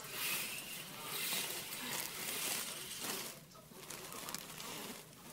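Fetal Doppler ultrasound audio: a rushing, whooshing hiss that swells and fades over a second or so, dipping for a moment a little past the middle.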